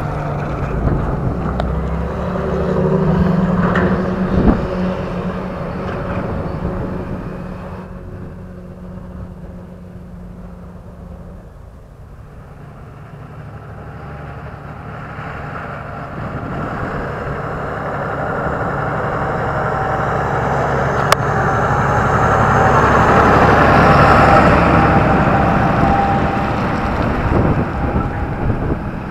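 Big farm tractors hauling heavy grain trailers along a paved road. A John Deere's engine fades as it pulls away, and after a lull a second tractor with its trailer approaches. It passes loudest about five seconds before the end, engine and tyre noise swelling and then dropping away.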